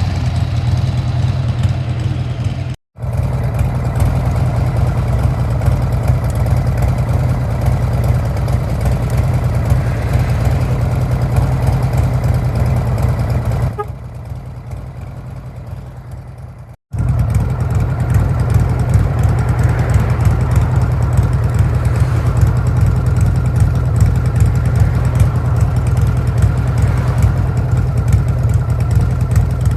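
Buell S1 Lightning's air-cooled 1203 cc V-twin idling steadily with a fast pulsing beat. The sound cuts out for a moment twice and is quieter for a few seconds from about 14 seconds in.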